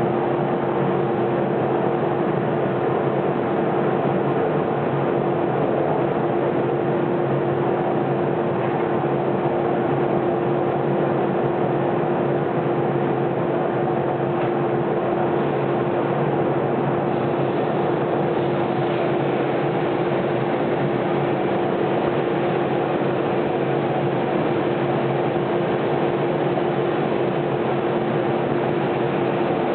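Homemade lathe-powered thickness sander running steadily, the lathe spinning its plywood sanding drum: an even whir with one steady held hum.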